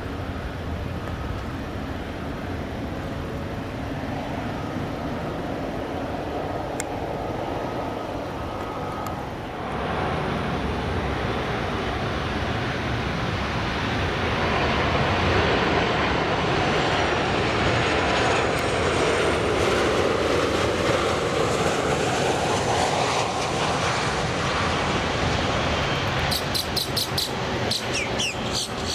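Jet airliner's engines passing by. The rushing noise swells about a third of the way in and is loudest in the middle, where a whine falls in pitch as the plane goes past. Near the end comes a quick series of sharp clicks.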